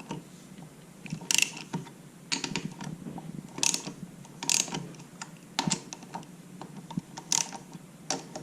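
Ratchet wrench loosening 10 mm bolts, in short irregular bursts of clicking strokes.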